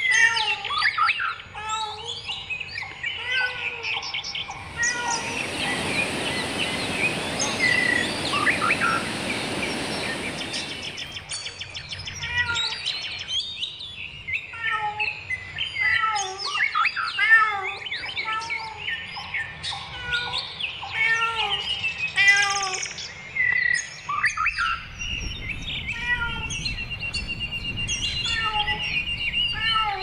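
Wild birds singing and chirping, several voices with many short repeated chirps and whistles. From about five seconds in to about eleven seconds, a steady hiss sounds beneath them and then stops.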